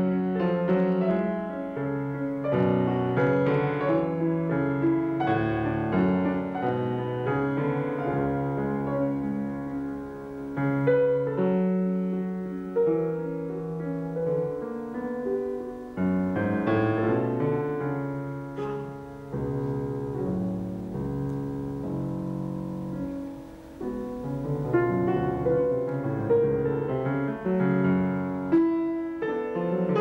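Steinway grand piano played solo: a classical piece of sustained chords and melody, softening briefly a little past the two-thirds mark before swelling again.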